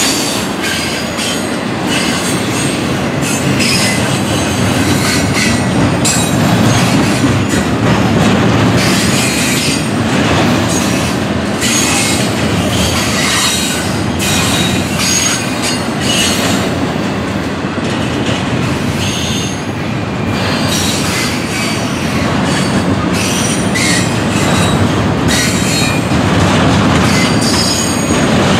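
Double-stack intermodal container cars of a freight train rolling past close by: a steady heavy rumble of steel wheels on rail, with irregular clanks and short high-pitched wheel squeals.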